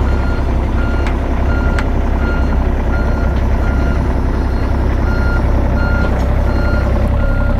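John Deere 35G mini excavator's diesel engine running under load, with its travel alarm beeping at an even pace of about three beeps every two seconds as the machine tracks.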